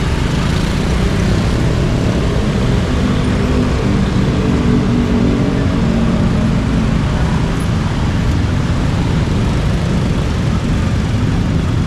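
Many motor scooters and motorcycles running and pulling away together in a steady din of small engines and traffic.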